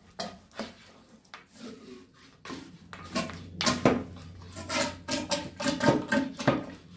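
A cast-iron spindle bearing being moved about in a plastic bucket of rust-remover solution: the liquid sloshes and drips, with irregular knocks and clinks of the metal, busiest in the second half.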